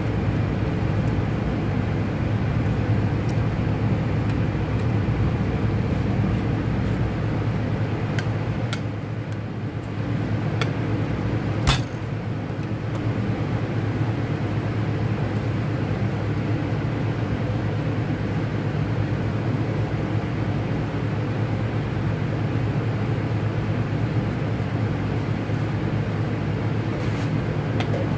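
Steady low hum of commercial kitchen machinery, with a few light clicks and one sharper knock about twelve seconds in as a knife works through a beef roast on a wooden butcher block.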